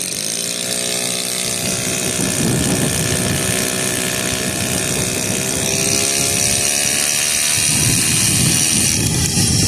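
Small two-stroke single-cylinder engine of a 1984 Suzuki FA50 Shuttle moped running. It revs up sharply right at the start, then holds a fairly steady pitch that eases down a little past the middle.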